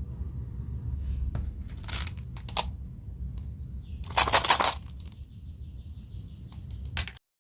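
Marbles rolling and clattering along a plastic marble-run track: scattered clicks, a loud clatter about four seconds in, then a fast, even rattle before the sound cuts off suddenly near the end.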